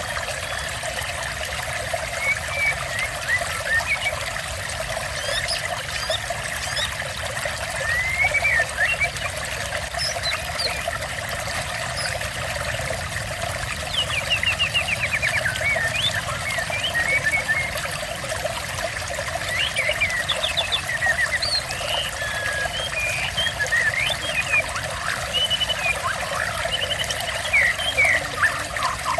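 Water trickling steadily, with small songbirds chirping and whistling in short phrases over it, more often in the second half.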